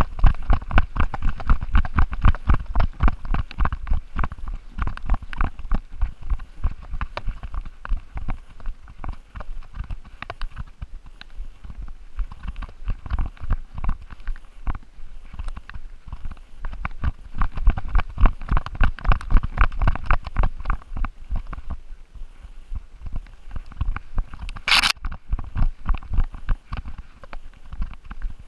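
A chocolate Labrador running with a GoPro strapped to its back: rapid, rhythmic thumps as each stride jolts the camera, in loud stretches with quieter spells between. A single sharp crack sounds near the end.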